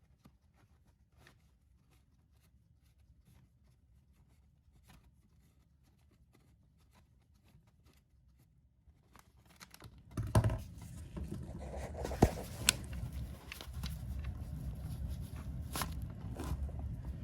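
Hand tools and parts being handled on a motorcycle during an oil drain. For the first several seconds there are only faint scattered clicks. Then louder knocks and scrapes come, with two sharp metallic clicks close together, and a steady rough noise runs to the end.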